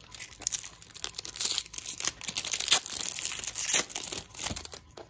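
A Pokémon card booster pack's foil wrapper being crinkled and torn open by hand: a run of dense crackling that stops near the end.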